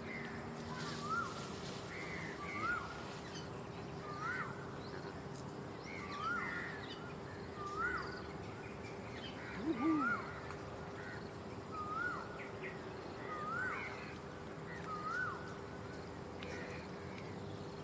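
A bird calling over and over, a short rising-and-falling note about every second and a half, against a steady high-pitched drone.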